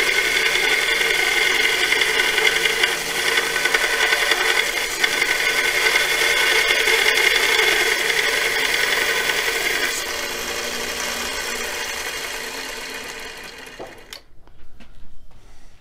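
Harbor Freight 1x30 belt grinder, converted to a DC variable-speed motor and running at 50 percent, grinding a steel lathe tool's edge on the abrasive belt. About ten seconds in the motor is switched off and the belt winds down over a few seconds, followed by a few light clicks.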